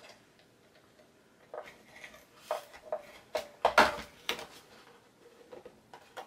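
Hands handling and folding patterned cardstock: paper rustling and scraping, with several short knocks and taps. The loudest cluster comes about four seconds in.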